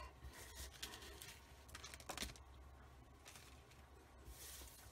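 Faint rustling and scattered light ticks of die-cut paper ephemera pieces being slid and gathered across a cutting mat.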